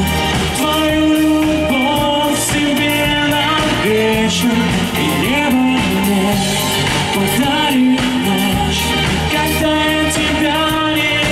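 Live pop-rock band playing through a concert sound system: a male lead singer over electric and bass guitars and drums.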